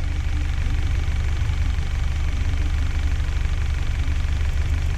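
Honda HR-V's engine idling steadily on a BRC Zavoli CNG conversion with a Valtec gas injector rail, while it is being switched over from natural gas to gasoline.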